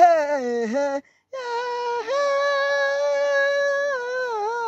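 A woman singing long, drawn-out vocal notes without words. First a falling note, then after a brief break a long high held note that wavers near the end.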